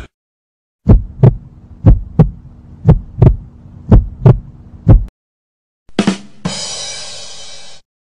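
Heartbeat sound effect: five double thumps (lub-dub), about one a second, over a low steady hum. About six seconds in comes a 'ba dum tss' rimshot: two quick drum hits, then a cymbal ringing for over a second.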